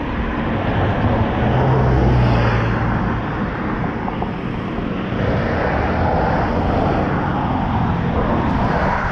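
Cars driving past on the road, engine and tyre noise swelling as each goes by, with a strong low hum about two seconds in and another swell later on.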